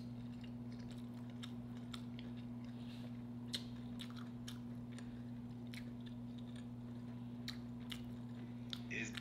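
A person chewing and eating close to the microphone: faint, scattered mouth clicks and smacks, over a steady low hum.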